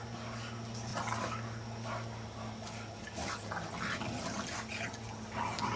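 Two English bulldogs and a puppy play-wrestling, giving scattered short breathy noises over a steady low hum.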